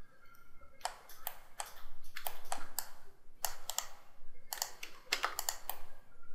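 Computer keyboard and mouse clicking in irregular clusters of quick clicks.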